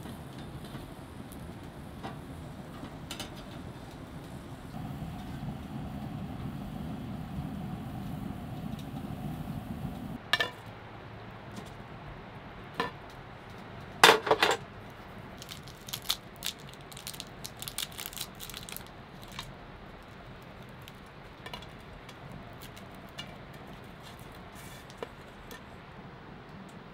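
Metal tongs clicking on the wood stove's steel cooktop over a low steady rumble, which stops abruptly. Then roasted chestnuts clink onto a steel plate, loudest in a quick cluster about halfway through, followed by lighter scattered clicks.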